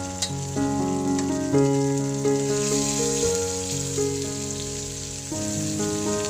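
Salted fish sizzling in hot frying oil in a pan, a steady high hiss with a few faint clicks of a spatula. Instrumental background music plays over it.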